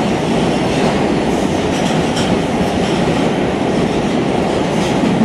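Subway car running through a tunnel, heard from inside the car: a steady, loud noise of wheels on the rails.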